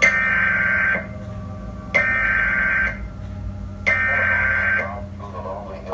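Emergency Alert System SAME header: three bursts of buzzing digital data tones, each about a second long with a second's gap between them, the coded opening of an EAS alert.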